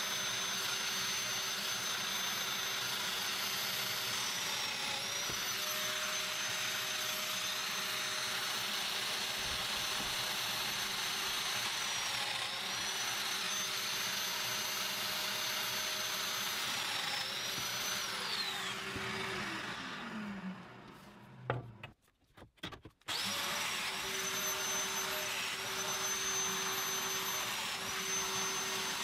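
Festool Domino joiner running with its dust extractor, plunge-cutting mortises into pine. The motor note dips briefly with each plunge. About two-thirds of the way in the tool winds down, there are a few light knocks, and then it starts up again and cuts a couple more mortises.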